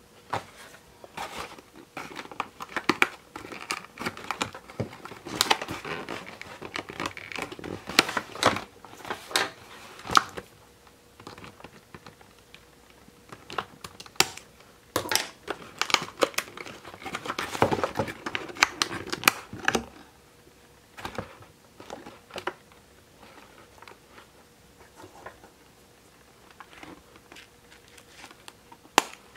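Cardboard doll box and its plastic packaging being handled and opened by hand: irregular crinkling, rustling and clicks, busiest through the first two-thirds and sparser near the end.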